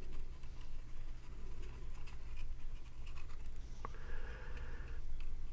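Small scratching and tapping sounds of cardstock pieces being handled while tacky glue is applied, over a steady low hum. A click comes about four seconds in, followed by a brief hiss.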